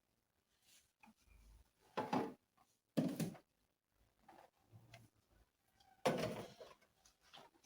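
Kitchen storage containers and baskets being handled and set down: a series of short knocks and clatters, the loudest about two, three and six seconds in.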